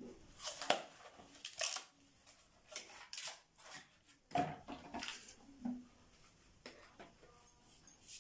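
Irregular knocks, clicks and rustles of plastic vacuum-cleaner parts and their packaging being handled.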